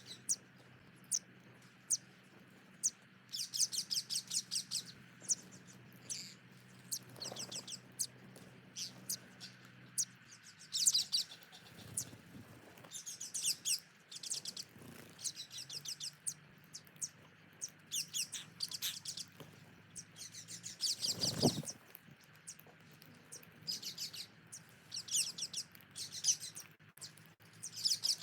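Birds chirping: single high chirps alternating with quick runs of rapid notes, over a steady low hum.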